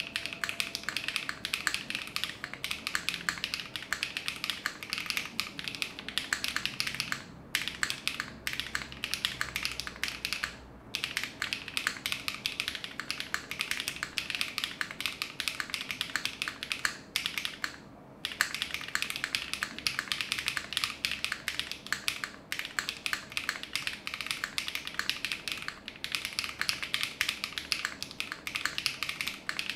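Continuous typing on a QK60 60% mechanical keyboard fitted with factory-lubed HMX Swift linear switches, GMK keycaps and an FR4 plate with no foam: a dense, steady stream of keystroke clacks, broken by a few brief pauses.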